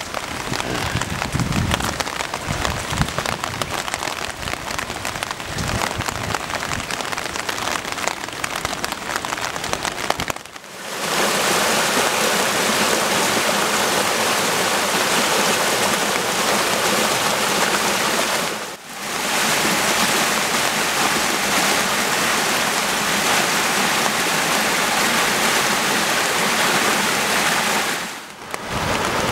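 Rain falling on a wet street, with gusts of wind buffeting the microphone. About ten seconds in it changes to a loud, steady rush of stormwater gushing from a row of drain outfalls onto the beach, broken twice by brief drops.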